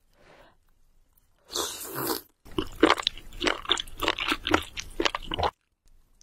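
Close-miked mukbang eating: after a moment of near silence, a short slurp about a second and a half in, then about three seconds of wet chewing full of quick sharp mouth clicks and smacks, which stop suddenly.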